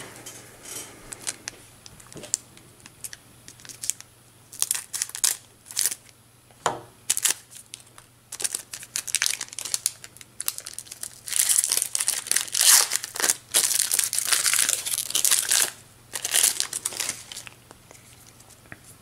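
My Little Pony CCG booster pack's foil wrapper crinkling and tearing as it is ripped open, in short crackly bursts, with a longer stretch of crinkling past the middle.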